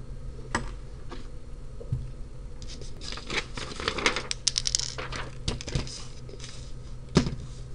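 Scattered light clicks, taps and rustling of hands handling small electronic parts and wire leads on a paper-covered desk, busiest in the middle.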